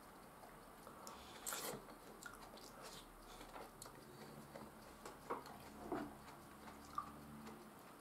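Faint chewing by a person eating, with soft wet handling sounds as a tomato is broken apart by hand and a few light clicks of food and utensils on a plate.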